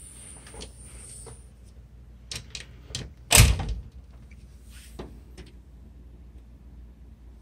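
A few sharp clicks, then one loud thump about three and a half seconds in. Under the first second and a half runs a high, steady insect trill that then stops.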